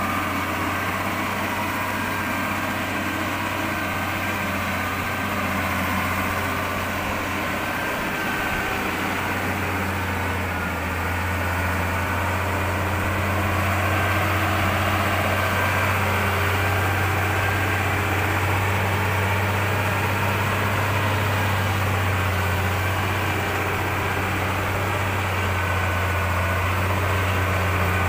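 Engine of a heavily loaded, modified log-hauling truck running steadily under load as it pulls up a slope, a low even hum that grows a little louder about halfway through.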